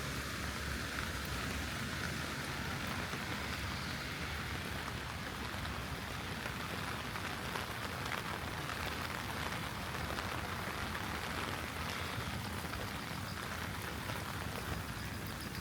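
Heavy rain falling steadily: a dense, even hiss with countless small drop ticks.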